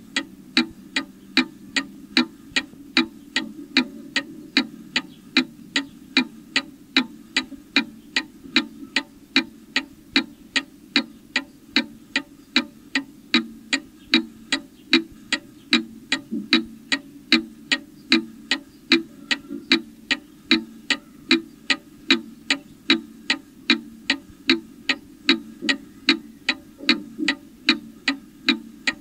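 Domestic mechanical clock ticking at an even pace, about two to three ticks a second.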